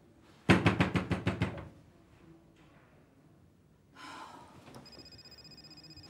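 Rapid knocking on a wooden apartment door: a quick run of about eight knocks lasting about a second. A faint, steady, high tone starts near the end.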